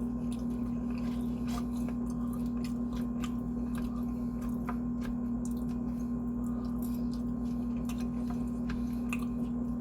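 A person chewing food close to the microphone, with small wet mouth clicks scattered throughout, over a steady low hum.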